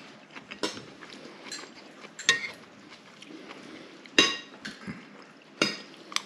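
Cutlery clinking and scraping against dinner plates, several sharp clinks with a brief ring, the loudest about four seconds in.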